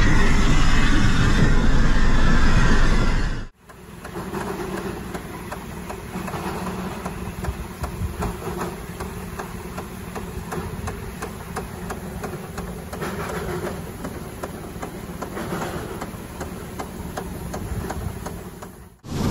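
Steam rotary snow plow R12 heard first inside its cab, a loud close rush of steam and machinery. About three and a half seconds in it cuts to the plow from outside as it blows snow: a quieter, steady mechanical clatter with fast, even ticking. Just before the end it cuts back to the loud cab noise.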